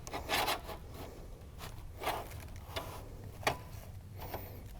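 Thin sheet-metal roofing trim (a valley cleat) being handled and trimmed: a series of short, separate scrapes and clicks, a few to the second.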